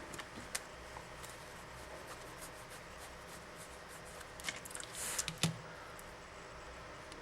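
Small clicks and taps of a mobile phone's plastic parts and tools being handled, with a brief scrape and a sharper snap about five seconds in.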